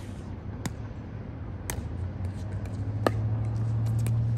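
Pickleball rally: sharp hollow pops of a paddle striking the plastic ball, three times about a second apart, over a steady low hum that grows louder toward the end.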